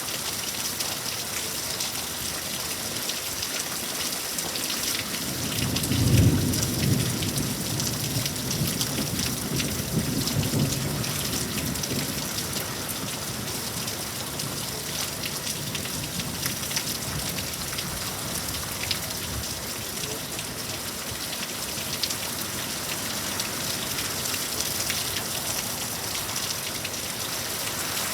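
Steady rain falling throughout, with a rumble of thunder that builds about five seconds in, peaks a second later and rolls on for several seconds before fading.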